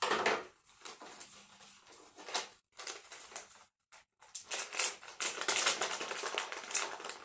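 Small objects being handled and rustled by hand: scattered clicks and clatter, then a dense run of crackling rustle in the second half.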